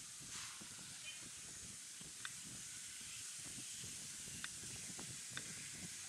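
Faint steady outdoor hiss, with three short, sharp chirps or clicks: one about two seconds in and two near the end.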